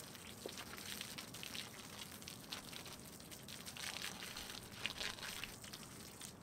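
Water from a garden hose lying on concrete spraying and splashing against a dog's legs and paws, an uneven spattering.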